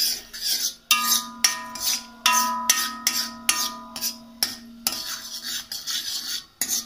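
Steel spoon scraping and knocking around a kadai while stirring melted butter with whole cinnamon and cloves: about two strokes a second, each with a short metallic ring.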